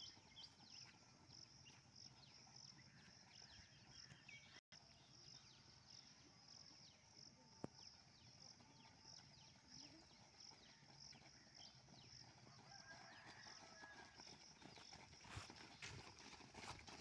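Faint footfalls of a group of runners on a dirt ground, growing louder near the end as the runners come closer, over a high chirping that pulses steadily.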